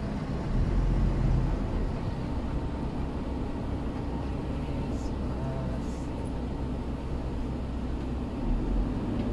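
Steady engine and road noise inside a moving van's cabin, a low, even rumble.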